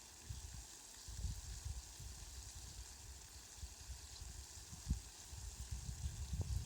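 Steady rain falling, an even hiss, with irregular low rumbles underneath that become more frequent near the end.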